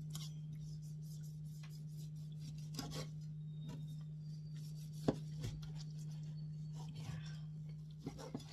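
Chef's knife slicing a tomato on a wooden cutting board: a few scattered knocks of the blade meeting the board, the sharpest about five seconds in, with soft rubbing strokes between them, over a steady low hum.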